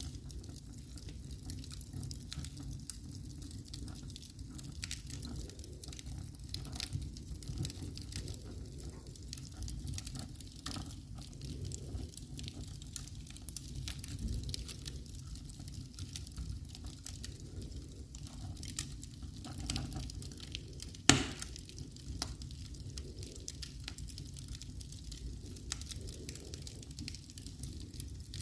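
Wood fire in a fireplace crackling, with many small pops over a steady low background and one much louder pop about two-thirds of the way through.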